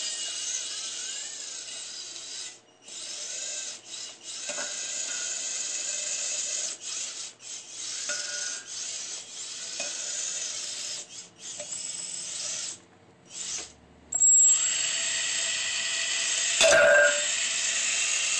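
Antweight combat robot's belt-driven circular saw blade spinning at high speed with a high whine and grinding into a wooden board. The sound cuts out briefly several times and comes back louder and steadier from about 14 seconds in.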